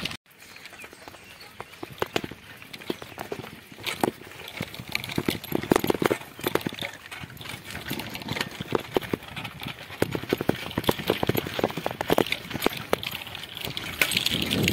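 Bicycle rattling and clattering as it rides over a rough, stony dirt track: a dense, uneven run of clicks and knocks.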